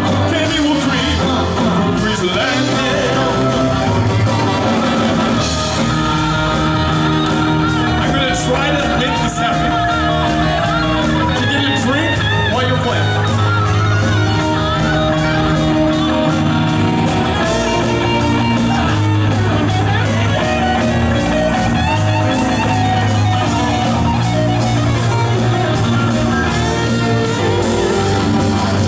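Live rock and roll band playing an up-tempo song: keyboard and electric guitar over a steady drum beat.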